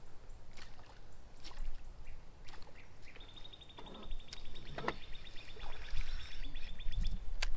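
Faint scattered clicks and knocks of a baitcasting rod and reel being worked from a boat, with a high, rapid, even trill lasting about four seconds in the middle.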